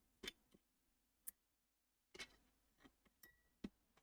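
Faint, scattered small clicks and taps, about six of them: a blown fuse being pulled out of its clips and small parts handled on the bench.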